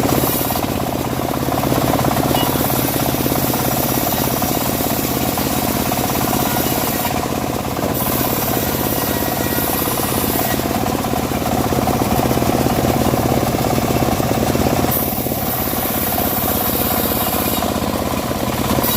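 Homemade bandsaw mill running steadily as it saws dry teak: a constant machine drone with a hiss that drops away and returns several times.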